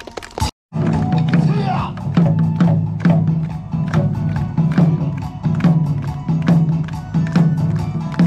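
Music with a driving percussion beat of sharp strikes, about two a second, over a steady low backing. It cuts out briefly about half a second in.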